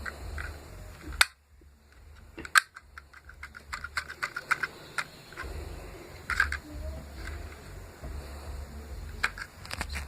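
Homemade PVC toy gun clicking and snapping as it is worked: two loud sharp snaps, one about a second in and one about two and a half seconds in, then a quick run of smaller clicks and a few single clicks near the end. A low rumble of handling or wind runs underneath.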